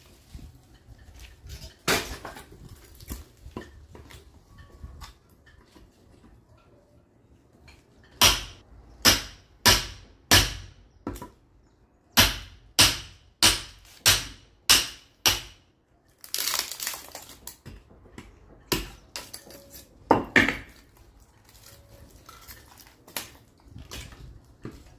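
Sledgehammer striking a steel splitting chisel driven into a caviúna log: two runs of sharp metallic strikes, about one and a half a second, with single blows and quieter knocks of wood in between.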